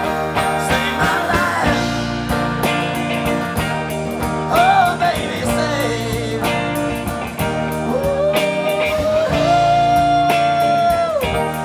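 Live band playing a blues-rock song: a lead line with bent, long-held notes, likely from the electric guitar, over strummed acoustic guitar, bass and drums.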